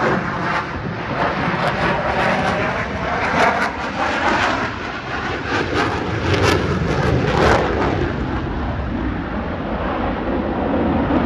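Jet noise from a fighter jet flying a display overhead: a loud, continuous rush that swells and eases as the jet moves.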